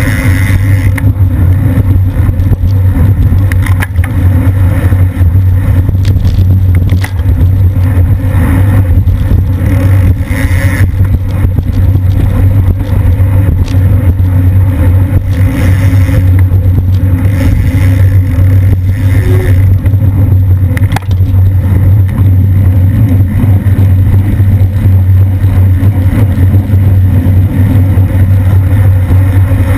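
Steady low wind rumble buffeting a bicycle-mounted camera's microphone while riding in a racing pack at about 20 mph, with a few short clicks.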